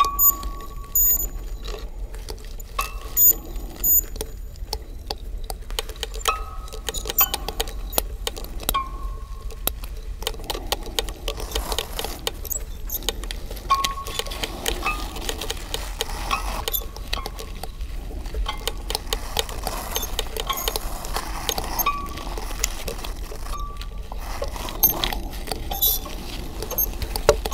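An amplified micro orchestra of tiny found objects left behind by children: a dense run of small clicks, clinks and scrapes, with short high tones that come back every second or two.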